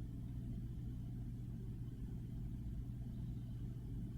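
Steady low hum with faint background noise and no distinct events.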